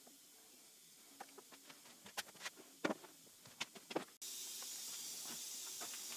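Faint, scattered light clicks and taps of hands adjusting a four-jaw chuck on a milling machine's index head while the workpiece is indicated in. About two-thirds of the way through, the sound switches suddenly to a steady faint hiss with a few soft clicks.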